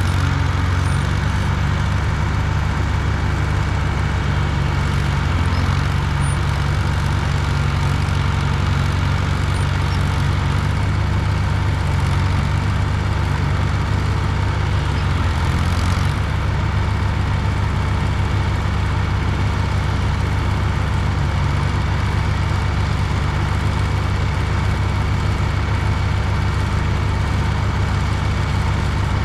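Heavy dump truck engine running steadily on the road, with a low drone whose note shifts about 16 seconds in.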